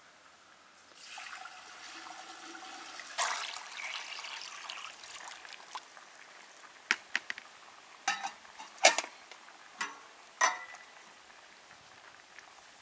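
Water pouring for a few seconds, then several sharp knocks and clacks of things being handled.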